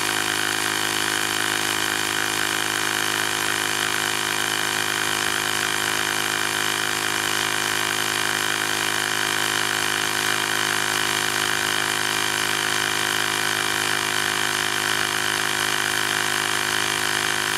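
Battery-powered portable digital tire inflator's compressor motor running steadily under load, pumping up a tire toward its preset pressure.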